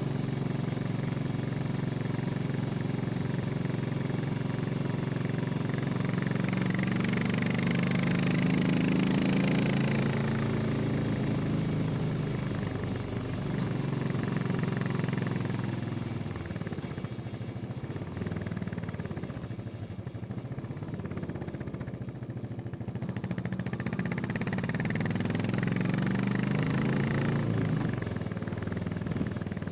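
Exhaust of a Royal Enfield Classic 500 EFI's single-cylinder four-stroke engine thumping steadily on the move, recorded from just above the exhaust. The pitch climbs as the bike pulls in the first third, drops back and quietens around the middle, then climbs again near the end.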